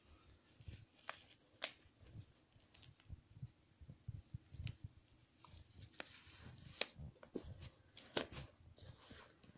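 Faint handling noise from the plastic FPV goggle housing and its strap being turned over by hand: scattered light clicks and soft rustles.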